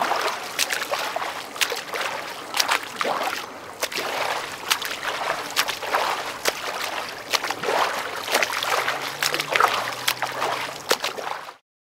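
Swimming through water: repeated stroke splashes and sloshing, surging again and again. It cuts off abruptly near the end.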